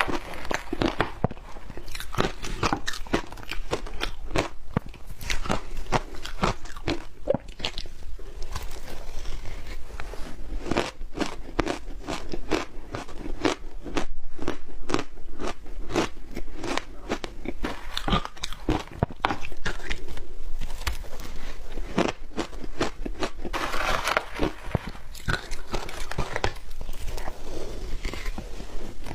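Close-up biting and chewing of powdery crushed ice, a continuous run of crisp crunches and crackles.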